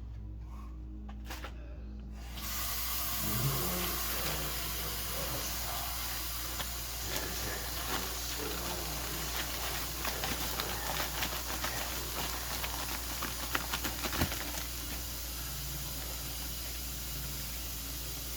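A steady hiss that starts abruptly about two seconds in, with a few faint clicks and knocks over it.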